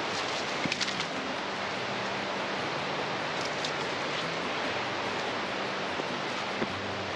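Steady rushing of a nearby river, with a few short snaps or crackles about a second in and again later.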